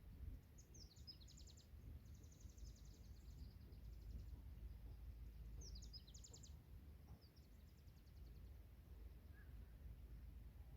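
Faint forest birdsong: a small songbird singing short phrases of rapid, high trilled notes, four phrases in all, over a steady low background rumble.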